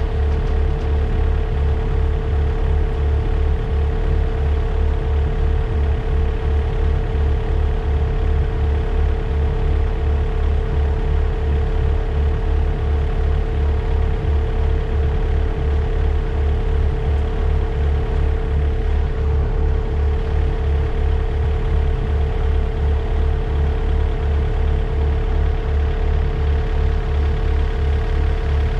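Takeuchi TB145 mini excavator's diesel engine running steadily at idle: an even low throbbing rumble with a constant hum above it, no revving.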